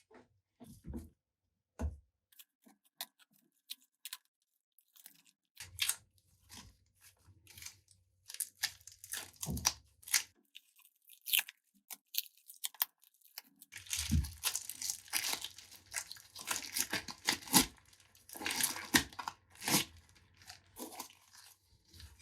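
Irregular tearing, crunching and crinkling handling noises, sparse at first, then a dense run of rough scraping and tearing through the middle and latter part.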